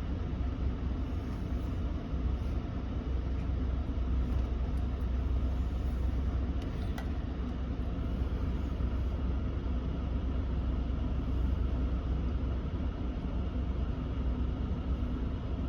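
A pickup truck's HVAC blower pushing a steady rush of air through the dashboard vents, over a low rumble from the idling engine, heard inside the cab. There is a faint click about seven seconds in.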